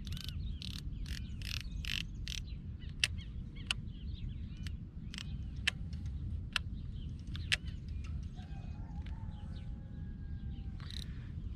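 Baitcasting reel clicking as its drag and brake are set by hand: irregular sharp clicks, closely packed in the first couple of seconds, then more spaced out. A low rumble of wind runs underneath, with faint bird chirps.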